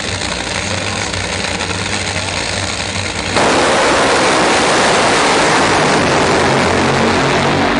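Drag-racing engine noise: a steady low engine rumble, then about three and a half seconds in a sudden jump to a much louder, dense engine blast that holds to the end.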